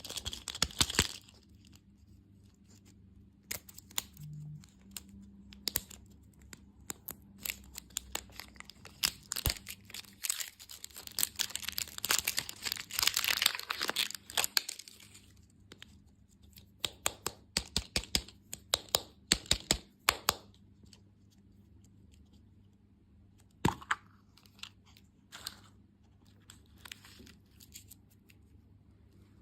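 Candy wrappers being torn open and crinkled: a run of sharp crackles and clicks, thickest in a dense stretch of crinkling around the middle, then thinning to scattered clicks.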